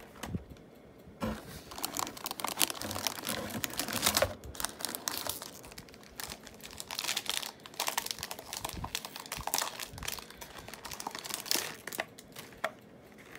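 Foil booster pack for a Heroclix miniature crinkling and being torn open, then the figure's plastic bag rustling, in rapid irregular crackles starting about a second in and going on in bursts until near the end.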